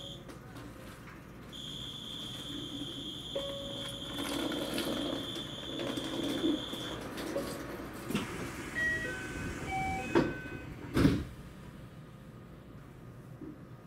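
A steady high electronic beep warns that the doors are closing: it breaks off briefly, then holds for about five seconds. A few short chime notes at different pitches follow. Then the sliding doors of a JR West 227 series train shut with two heavy thuds about ten and eleven seconds in.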